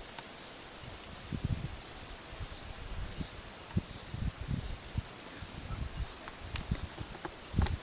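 Steady high-pitched drone of insects, with low irregular rumbles on the microphone and a few faint clicks near the end.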